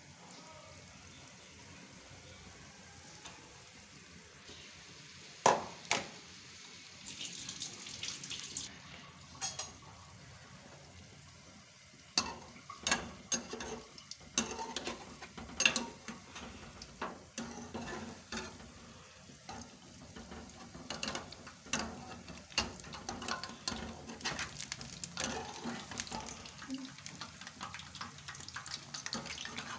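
Besan pakoras deep-frying in hot oil, a steady sizzle. From about five seconds in, a metal spoon and then a slotted spoon clink and scrape against the metal pan as the pakoras are turned, the strikes coming thick and fast in the second half.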